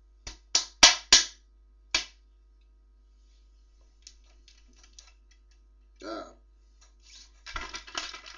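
About five sharp clicks of buttons being pressed on a toy remote control in the first two seconds, with no response from the fire truck it is meant to drive. Faint crackling follows later, growing scratchier near the end.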